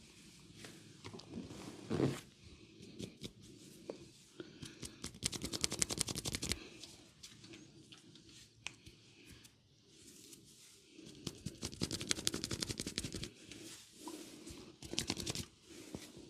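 Hand massage sounds from a barber's oil head and ear massage: soft rubbing on skin, with two long runs of rapid, even light strikes in the middle and later on, and a shorter run near the end.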